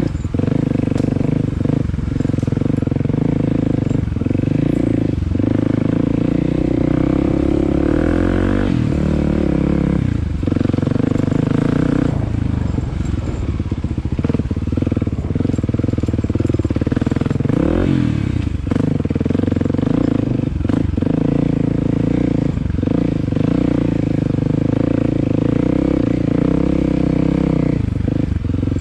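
Kawasaki KLX250 dirt bike's single-cylinder four-stroke engine running under way, its pitch shifting with the throttle, with a quick drop and rise in revs about two-thirds of the way through. Scattered short knocks over the engine.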